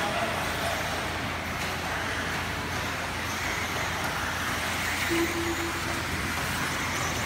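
Several electric RC buggies from the 17.5-turn brushless class racing on a dirt track, making a steady, even noise of motors and tyres.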